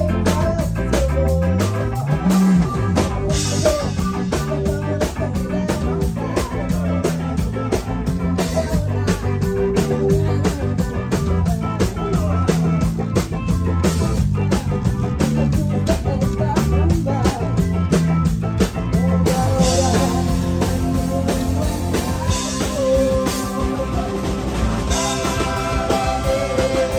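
Live rock band playing: electric bass, drum kit and electric guitar over a steady beat, with the bass sliding up and back down about two seconds in.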